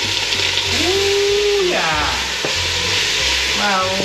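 Ground spice paste and aromatics (lemongrass, galangal, ginger) frying in hot oil in a stainless steel pot, with a steady sizzle while a spoon stirs them.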